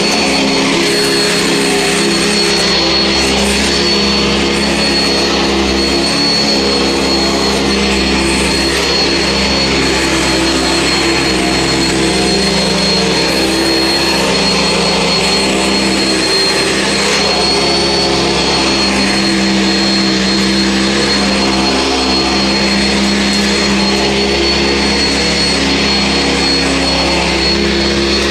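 Sanitaire SC679 upright vacuum cleaner running continuously while it is pushed over carpet: a steady rushing motor noise with a low hum and a thin, high-pitched whine.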